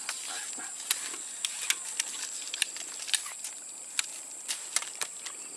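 Steady high-pitched insect chorus, crickets, with a string of sharp, irregularly spaced clicks and ticks over it.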